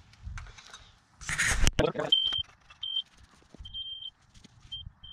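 Laser receiver on a grade rod beeping, signalling where the spinning laser beam strikes the rod: a few short high beeps and one longer beep. Before the beeps there is a loud rustle ending in a sharp knock.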